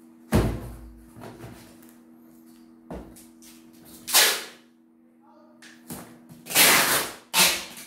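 A cardboard box set down on a stack with a thud, then clear packing tape ripped off the roll in short, loud tearing strips, three times, one about half a second long.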